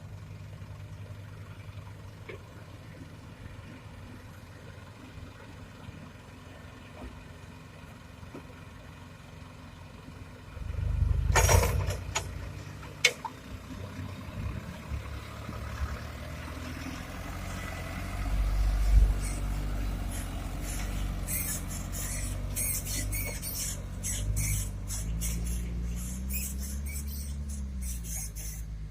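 Heavy diesel machinery running at a low idle hum. About ten seconds in the engines get much louder, with two sharp clunks. In the second half the engine works harder, its pitch rising and falling, with a rapid squeaky clicking near the end.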